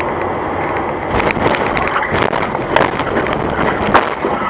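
Steady vehicle noise, then from about a second in a string of sharp knocks and cracks of a dash-cam vehicle hitting or being struck, the loudest near the end.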